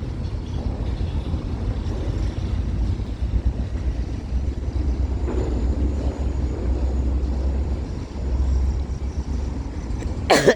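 Kansas City Southern freight train rolling past, a steady low rumble of cars on the rails. Near the end there is a single sharp cough.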